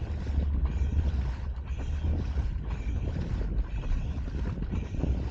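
Wind rumbling steadily on the microphone over a hiss of open water.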